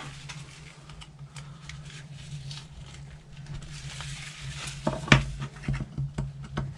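Small screwdriver clicking and scraping against a small RC car part while working a bearing loose: faint scattered ticks, then a run of sharper clicks about five seconds in. A steady low hum underneath.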